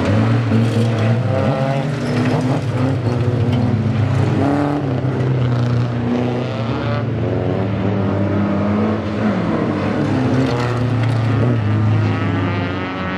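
Race car engines running and revving as cars pass on a gravel track. It is loud throughout, with the pitch rising and falling as the cars accelerate and go by.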